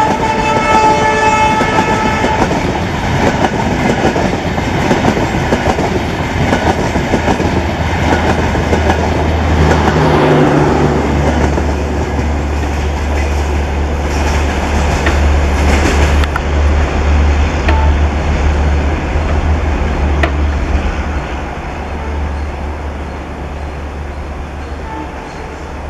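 A train horn from the leading WDP4 diesel locomotive, ending about two seconds in, over the rolling clatter of LHB coaches rushing past. From about ten seconds a steady low hum joins as the rear power car with its diesel generator sets goes by, and then the sound fades as the train draws away.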